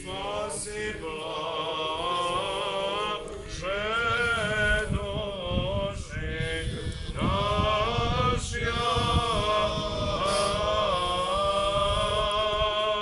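Men's voices chanting an Orthodox liturgical hymn together, in long held notes that shift in pitch.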